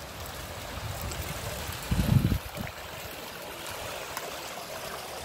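Steady rush and trickle of water running at a canal lock, with one brief low rumble about two seconds in.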